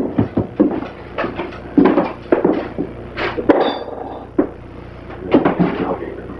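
Irregular knocks and clatter of equipment and parts being handled, some sharp, over a steady low hum.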